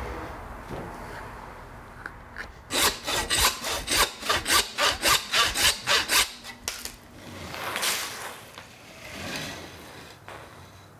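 A hand saw cutting into a hanging deer carcass in quick back-and-forth strokes, about four a second, starting about three seconds in and lasting roughly four seconds. It is followed by a couple of slower, softer rasping swipes.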